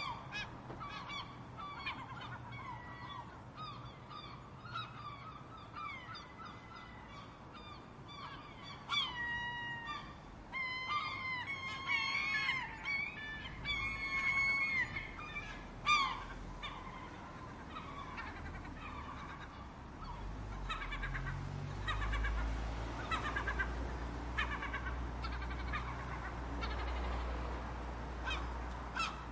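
A flock of seagulls calling, many overlapping squawks and cries, thickest about halfway through and thinning out afterwards. A low rumble comes in during the second half.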